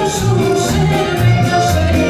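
Live band playing a sevdalinka: a woman singing over electric bass, acoustic guitar and drum kit, with a steady beat on the cymbals.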